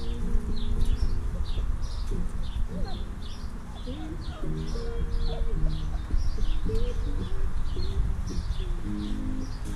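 Birds chirping over and over, quick high chirps a couple of times a second, over held low tones that shift in pitch and a steady low rumble.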